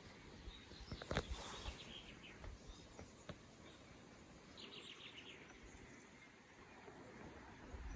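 Faint outdoor ambience: a steady low hiss with a few short bird chirps, including a quick trill of rapid high notes about halfway through.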